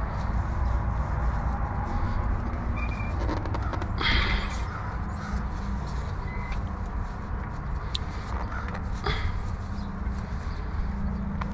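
Steady low drone of an engine running nearby, with a few brief knocks about four seconds in and again near eight and nine seconds.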